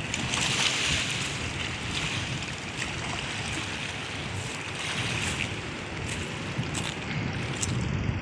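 Wind rumbling on the microphone over small waves washing on a pebble-and-shell shore, swelling twice. Scattered crunches of footsteps on the shell gravel, more of them near the end.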